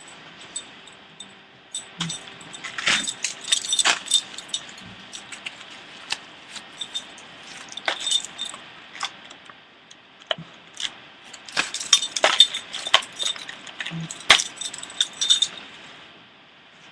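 Small hard objects being handled, clicking and clattering in irregular bursts, busiest about three seconds in and again around twelve to fifteen seconds.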